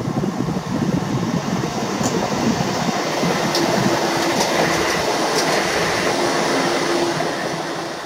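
Newag Impuls II 36WEd electric multiple unit running past at speed: a loud rumble of wheels on the rails with a few sharp clicks, and a steady hum that comes in about three seconds in. The sound begins to die away near the end.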